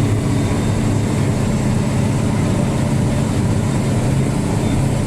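Truck engine running steadily, a low even hum with no change in pitch.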